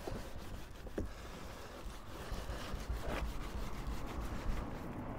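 Soft-bristled brush scrubbing back and forth along a car's dirty rubber window seal, a steady rubbing with a couple of light knocks near the start.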